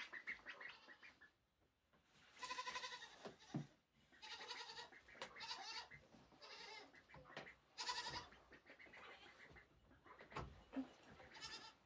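Goat bleating several times, each a quavering call of about a second or less, with short pauses between.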